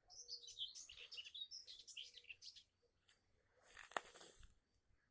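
Faint bird twittering, a quick run of high chirps over the first two and a half seconds, then a brief rustle with a single click about four seconds in.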